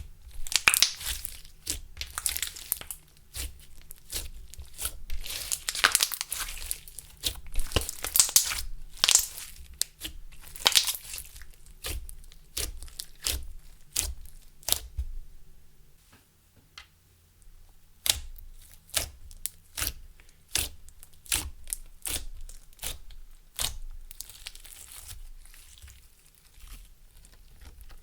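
Clear slime being squished, stretched and folded by hand, giving a dense run of sticky crackles and pops that thins to single sharp pops a little before halfway.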